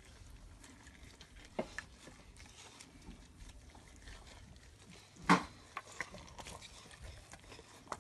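Plastic-gloved hands squishing and rubbing a wet marinade paste into a whole raw chicken: soft squelching with scattered small clicks. There is one sharp knock about five seconds in.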